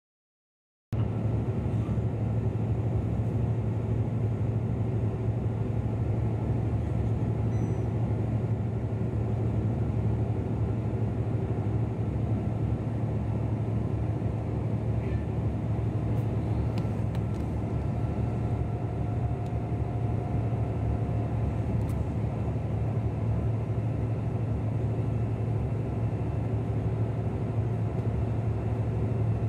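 Steady low engine and road rumble heard from inside a moving bus, starting about a second in.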